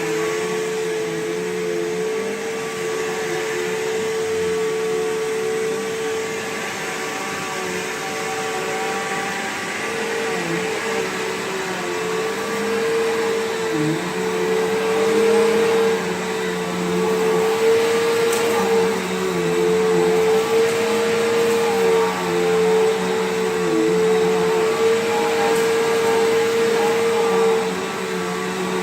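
Bissell PowerGlide Platinum (3545-2) bagged upright vacuum running with a steady motor whine. Its pitch sags briefly every few seconds as the load on the motor changes.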